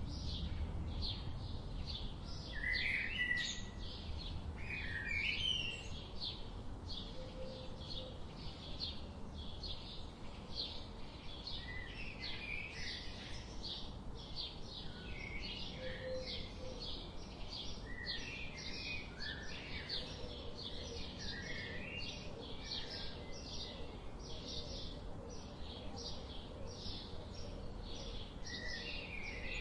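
A chorus of small birds chirping: a dense run of short, high chirps a few per second, with lower warbling calls mixed in, over a faint low background rumble.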